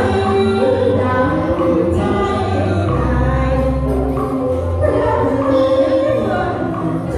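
Music from a Vietnamese song recording: a melody line over bass accompaniment.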